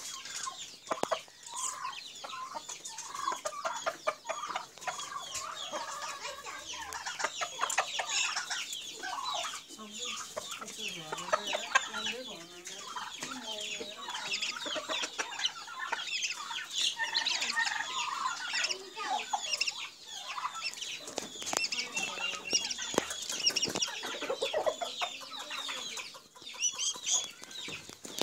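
Domestic chickens clucking and calling continuously, with many short calls overlapping.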